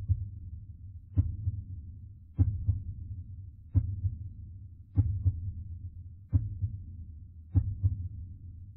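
Heartbeat sound effect: a low double thump, lub-dub, repeating evenly about every one and a quarter seconds.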